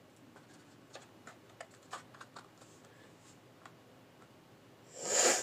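Faint, irregular clicks and crackles of a scored cardboard band being handled and bent, with a brief loud rustling hiss about five seconds in.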